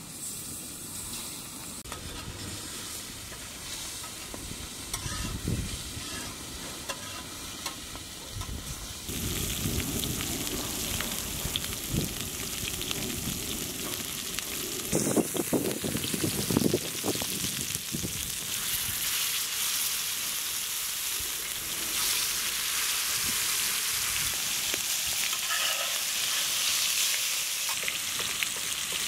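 Marinated shark fish pieces shallow-frying in oil: a steady sizzle that grows louder about a third of the way in, with a few knocks of the pieces being moved around the middle.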